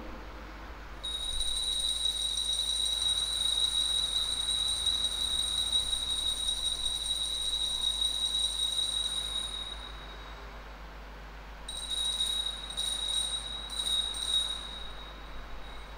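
Altar bells (hand-rung Sanctus bells) ringing at the elevation of the consecrated host. There is one long, steady, high-pitched jingle for about nine seconds, then after a short pause a second round of several short shakes.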